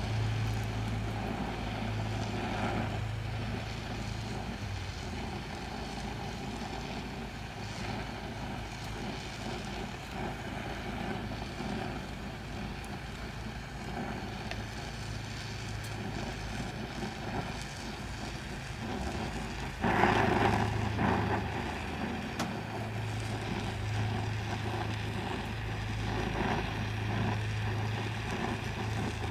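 Oxy-acetylene welding torch (DHC2000, #2 tip) burning steadily while welding steel exhaust pipe, giving a steady rushing noise with a low hum that comes and goes. The noise swells for a couple of seconds about two-thirds of the way through.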